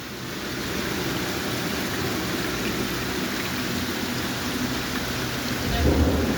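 Heavy rain pouring steadily, with a low rumble of thunder starting near the end.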